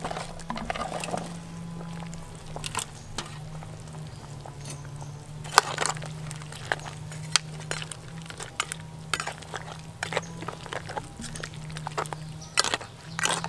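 Sliced onion and chilli tipped into a pot of lobster broth, then a metal ladle stirring it, clinking and scraping against the metal pot in irregular sharp clinks. A steady low hum runs underneath.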